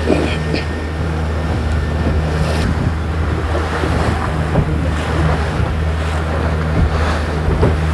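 A small motorboat's engine running with a steady low drone, under the rush of water past the hull and wind buffeting the microphone.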